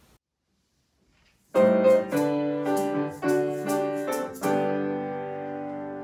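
Silence for about a second and a half, then a piano comes in with a run of struck chords and ends on a held chord that slowly fades: the introduction to a hymn.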